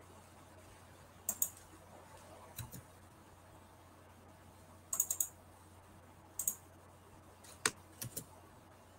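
Scattered clicking at a computer, in small groups: a pair about a second and a half in, a quick run of three or four around five seconds, and a few more near the end. A faint steady hum runs underneath.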